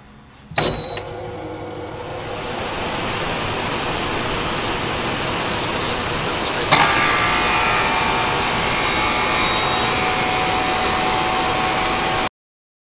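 Logo intro sound effect: a sharp hit, then a hiss that swells over a couple of seconds. About halfway through a second sharp hit brings in a steady, dense rush of noise with faint tones, which cuts off abruptly near the end.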